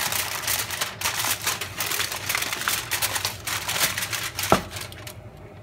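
Aluminium foil crinkling and crackling as it is pressed and crimped down over a baking tray, a rapid run of small crackles with one sharper click about four and a half seconds in. It stops about five seconds in.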